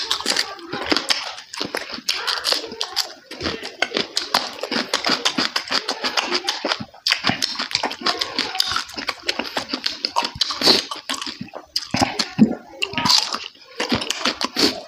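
Wet chewing and lip smacking of a person eating oily meat by hand, a dense, irregular run of clicks and squelches.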